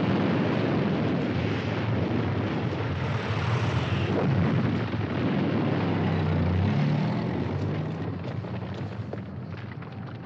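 Air-raid sound from a film soundtrack: a dense, steady rumble of aircraft and explosions that fades over the last few seconds.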